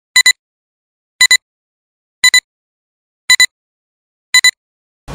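Film-leader countdown beeps: a short, high electronic beep about once a second, five times, each a quick double blip, with dead silence between.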